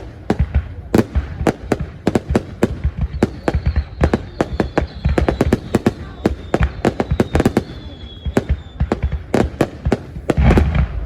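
An aerial fireworks display going off, with sharp bangs and cracks following each other in quick irregular succession. A faint high whistle drifts slightly down in pitch through the middle, and the bangs crowd into a dense volley near the end.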